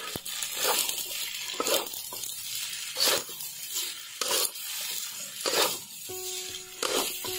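Metal ladle and spatula scraping and tossing spaghetti in a wok, in sudden strokes about a second apart.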